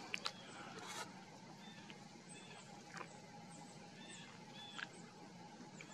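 Faint, distant bird calls: short high chirps and brief call notes every second or so over a low steady background hum, with a few soft clicks near the start.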